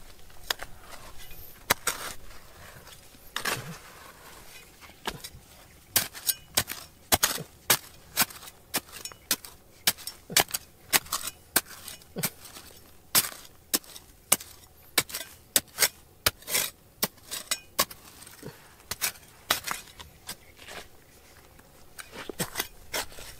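Hand tools striking rock, a run of sharp, irregular clinks and knocks. A few come early, then about two a second from about six seconds in, with a short lull near the end.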